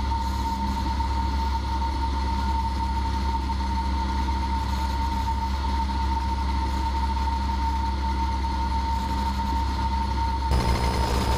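Cessna 172P cockpit audio: a steady high-pitched squeal in the intercom over the constant drone of the engine and propeller. The squeal comes from the overcharging charging system. About ten seconds in, the background hiss grows louder.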